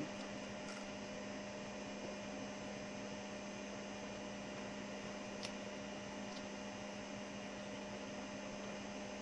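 Steady low electrical hum with an even hiss behind it, and one faint click about five and a half seconds in.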